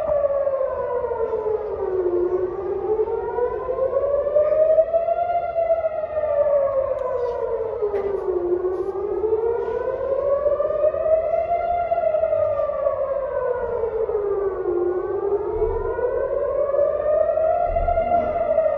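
Civil defence air raid siren wailing, its pitch rising and falling slowly and evenly about every six seconds: the alert for incoming rockets.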